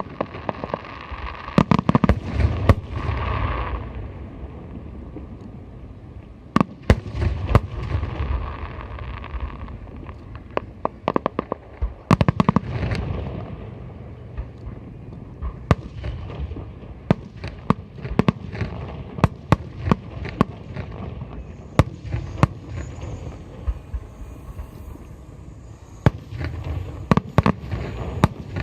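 Aerial firework shells bursting: many sharp bangs, several clusters of rapid bursts, over a continuous low rumble.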